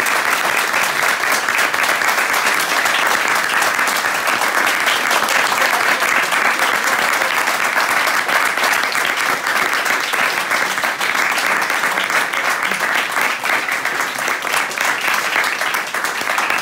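A small audience clapping steadily, many hands at once, holding even and unbroken.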